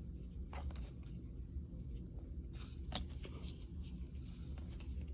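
Baseball trading cards being handled and flipped through, a few soft clicks and rustles over a steady low hum.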